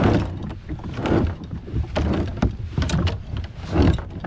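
Kayak paddle strokes in the water, a rhythmic swishing splash about once a second, with one sharp knock about halfway through.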